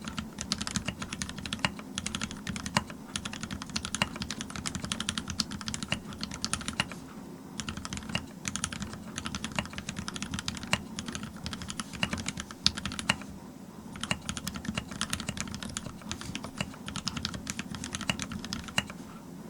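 Fast typing on a TX-87 tenkeyless mechanical keyboard with Cherry MX Black linear switches on 65 g springs, a brass plate and GMK keycaps: a dense run of keystrokes, broken by two short pauses, that stops just before the end.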